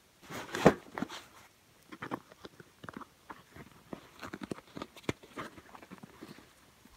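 A thump about half a second in, then canvas rustling and small clicks as the straps and buckles of a canvas backpack are worked open.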